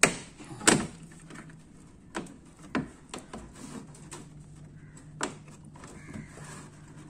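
Sharp plastic clicks and knocks as the side clips of a Perodua Myvi's fog lamp cover are pressed and popped free. The two loudest come in the first second, then several lighter ones are spread through the rest.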